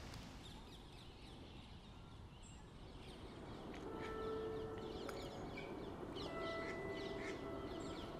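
Outdoor bird calls, many short high chirps, over a steady low background rumble. About four seconds in, soft music with long held notes fades in beneath the birds.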